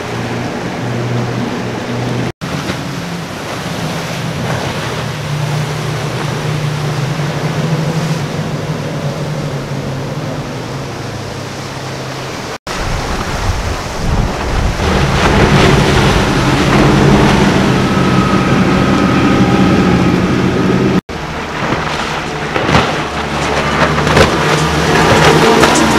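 Outboard-powered center-console boats running at speed through choppy water, a steady engine drone with the rush of spray, waves and wind. The sound changes abruptly three times as separate passes are cut together.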